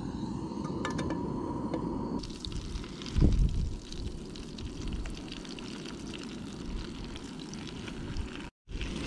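Food sizzling in a pan on a portable gas stove: a steady crackling fry over a low rush, with a louder bump about three seconds in.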